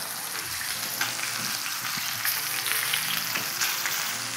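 Bone-in ribeye steak searing in a hot pan in its own rendered beef fat: a steady sizzling hiss with small crackles and pops.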